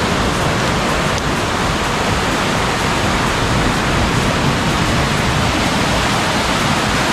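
Small woodland brook in flood after heavy rain, fast brown whitewater rushing and churning over a low step in a steady loud rush.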